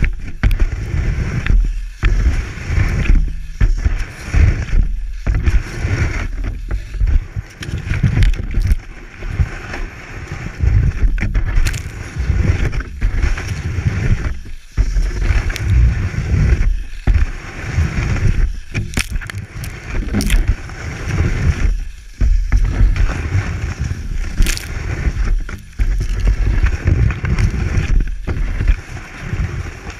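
Cross-country ski sliding and scraping over snow, heard close up from a camera on the boot: a low rumbling scrape that briefly drops out every two to three seconds in time with the classic-style strides, with occasional clicks.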